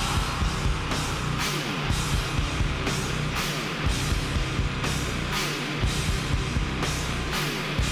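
Background heavy metal music with distorted guitar and a steady drum beat.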